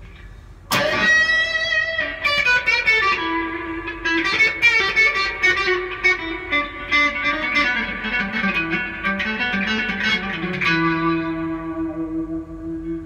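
Stratocaster-style electric guitar improvising a lead in E minor: a sharp strike about a second in opens a run of quick single notes and bends, which settles into one long held note near the end.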